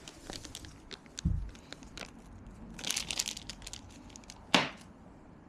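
Crinkling and scattered clicks of small bike parts and their packaging being handled, with a dull thump about a second in, a crackly flurry around the middle and a single sharp knock near the end.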